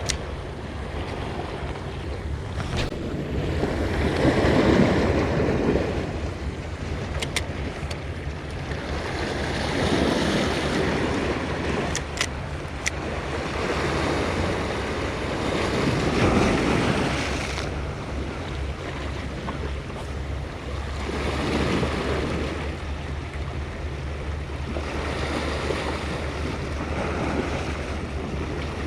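Sea waves surging and washing against a rocky shore, swelling about every five to six seconds, with wind buffeting the microphone and a few faint clicks.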